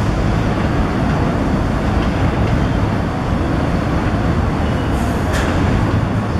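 D train of subway cars rolling slowly through the curved terminal approach tracks, giving a steady low rumble of wheels on rail. A couple of brief high-pitched sounds come about five seconds in.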